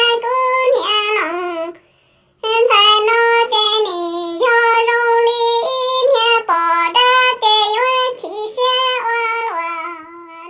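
A high-pitched voice singing Hmong kwv txhiaj, sung improvised poetry, in long held notes that waver and slide between pitches. The singing breaks off briefly about two seconds in, then carries on and fades at the end.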